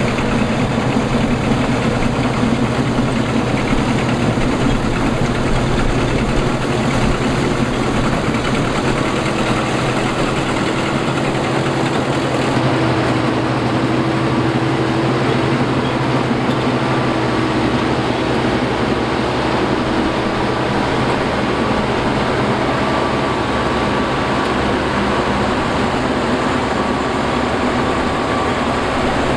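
Combine harvester running steadily, a loud, even engine and machinery hum.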